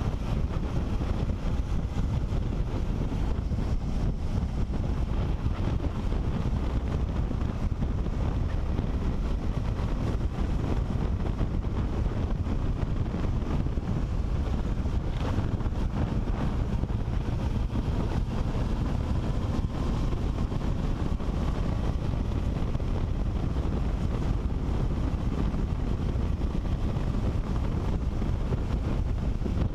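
Steady wind rush on the microphone of a helmet-mounted camera on a moving motorcycle, with the engine running underneath at road speed.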